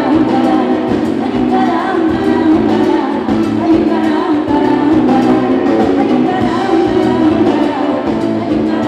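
Live band playing with a woman singing lead into a microphone, backed by drums, bass and acoustic guitar.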